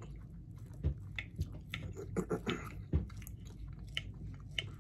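Knife and fork cutting a steak on a plate, with scattered clicks and scrapes of the cutlery against the plate and two duller knocks, at about one second and three seconds in. Quiet chewing sounds mix in.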